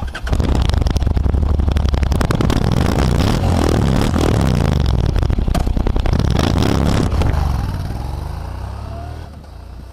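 Motorcycle engine running loudly right at its exhaust silencer as the bike pulls away, the sound fading into the distance over the last couple of seconds.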